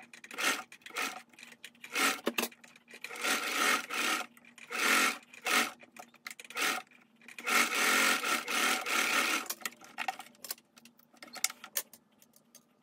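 Domestic sewing machine stitching in short runs, starting and stopping, as pleats in linen are basted in place. Near the end there are scattered small clicks and rustles as the fabric is handled and pulled off the machine.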